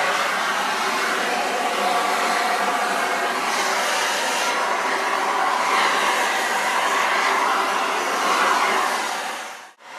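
Handheld electric heat gun blowing steadily as it heats a propeller blade. It cuts out briefly near the end.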